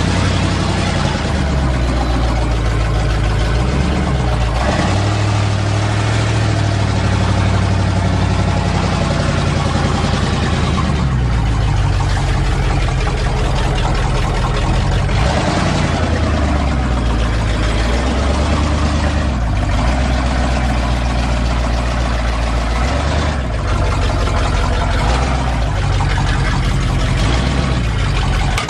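1977 GMC truck's engine running steadily under way, its engine speed rising and falling several times as the truck is driven.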